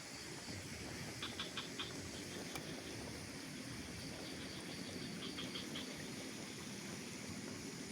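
Outdoor mountain ambience: a steady hiss with two short bursts of quick, high chirps from a small animal, about four or five notes each, the first about a second in and the second about five seconds in.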